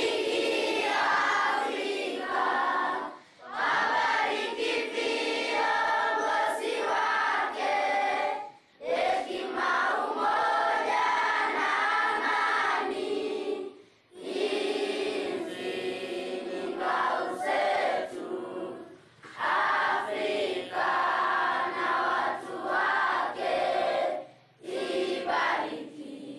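A group of schoolchildren singing together in chorus, in sung lines of several seconds each with short pauses for breath between them.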